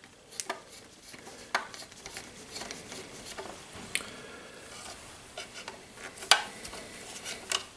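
Scattered light clicks and rubbing of small plastic and metal parts as a model helicopter's plastic fuselage and tail case are handled and their screws tightened with a screwdriver, seating the plastic tail pin.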